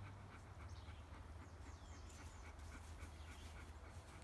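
Quiet outdoor background: a steady low hum with faint, scattered high chirps.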